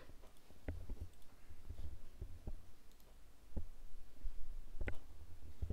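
Computer mouse clicks, several spread out a second or so apart, over an uneven low rumble.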